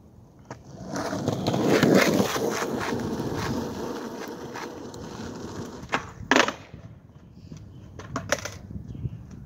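Skateboard wheels rolling over asphalt, growing loudest as the board passes close by about two seconds in and then fading. A sharp clack of the board comes about six seconds in, and a smaller one a couple of seconds later.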